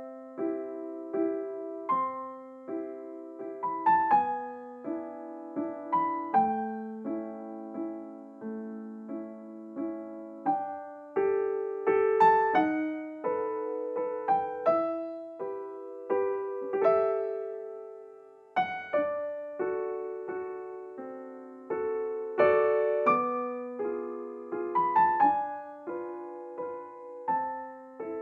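Background piano music: a gentle, unhurried melody of struck notes and chords, each note fading after it is played.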